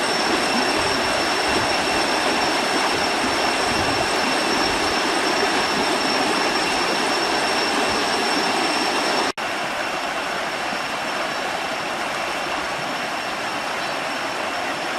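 Waterfall rushing: a loud, steady noise of falling water. It breaks off for an instant about nine seconds in and carries on slightly quieter.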